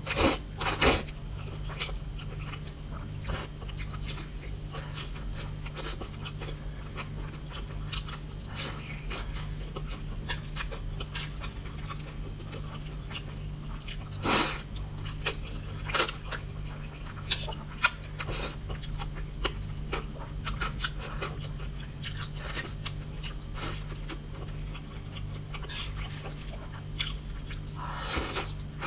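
A person slurping and chewing noodles, with many short wet mouth clicks and louder slurps about a second in, around halfway through and near the end. A steady low hum runs underneath.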